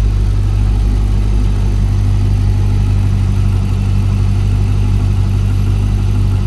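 Freshly rebuilt LS1 5.7-litre V8 of a C5 Corvette idling steadily and smoothly.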